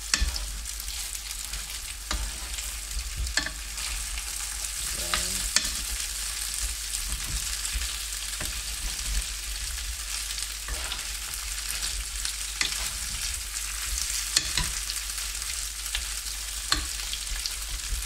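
Corn-flake-coated sausages and potato finger noodles sizzling in hot fat in a frying pan. A metal spoon stirs and turns them, clicking and scraping against the pan now and then.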